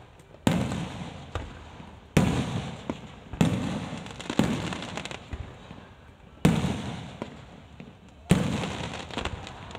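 Aerial fireworks bursting: about six sudden booms one to two seconds apart, each trailing off in a fading tail before the next.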